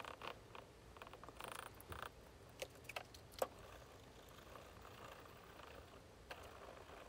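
Faint rubbing of a sponge and cloth over a glazed ceramic bowl, wiping off excess epoxy filler, with three light clicks around the middle.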